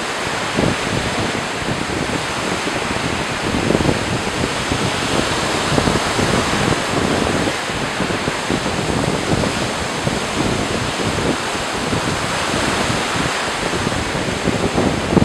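Ocean surf: small waves breaking and washing up the sand around the pier's concrete pilings, a steady rush of water that swells and eases.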